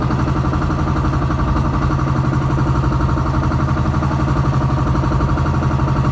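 A small boat's engine running at a steady speed, a loud, even pulsing drone.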